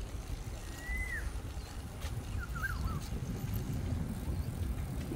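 Wind and road rumble on the microphone of a moving road bike, with a bird calling twice: a short whistle that rises then falls about a second in, and a quick wavering call a moment later.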